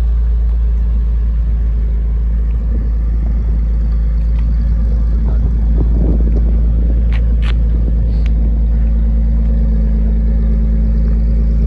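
Nissan 370Z's 3.7-litre V6 running with a deep, steady exhaust note as the car pulls away at low speed. A couple of short sharp clicks come about seven seconds in.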